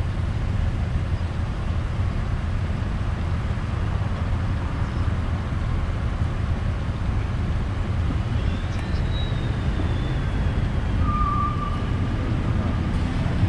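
Engines of a line of hearses idling in a stopped queue, a steady low rumble. A faint, brief high-pitched tone comes through about two-thirds of the way in.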